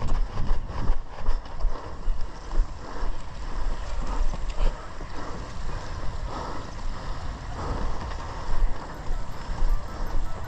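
Wind buffeting a head-mounted action camera's microphone as the wearer runs, a gusty low rumble with the thud of footfalls on paving at running pace.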